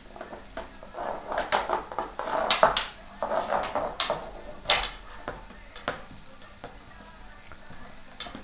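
A pet playing with a squeaky toy and a small shovel: a busy run of squeaks and clattering knocks for about four seconds, then a few single knocks.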